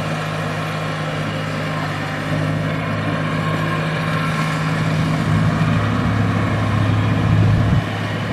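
Diesel farm tractor engine running steadily as it pulls a loaded trailer, getting louder as it draws near, then dropping suddenly near the end.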